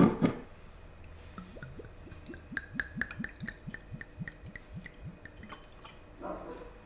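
A sharp knock, then a quick run of short, plopping blips that each drop in pitch, about four or five a second for several seconds: typical of thick jam bubbling in a pot as it simmers down.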